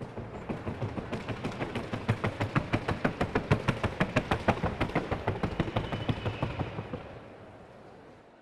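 Hoofbeats of a Colombian trocha mare crossing the wooden sounding board: a rapid, even run of sharp hoof strikes. They grow louder toward the middle and fade away a second or so before the end.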